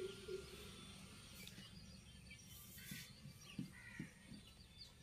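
Faint outdoor ambience with small birds chirping in short calls. A laugh trails off at the very start, and there are a couple of soft knocks a little past halfway.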